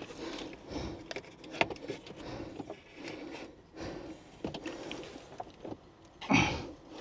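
Small clicks and rustling as a heavy battery earth cable and its terminal are handled and worked into place on a leisure battery. A louder heavy breath from the worker about six seconds in.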